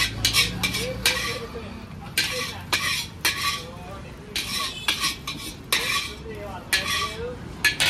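Metal spatula scraping and knocking around a large metal wok as fried noodles are scooped out. It comes as a quick, irregular run of strokes, each with a short metallic ring from the wok.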